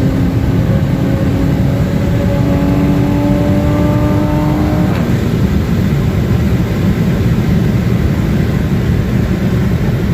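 Modified MK5 Toyota Supra heard from inside the cabin, its engine pulling under load with the pitch rising slowly for about five seconds. The engine note then drops away with a brief sharp tick as the throttle is lifted or a gear changes, leaving a steady rush of road and wind noise.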